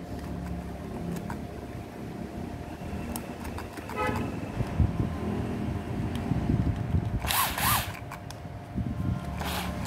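Makita cordless drill run in two short trigger pulls, about two-thirds of the way in and again near the end, its motor whine rising and falling each time. Under it there is a low, steady rumble like passing traffic.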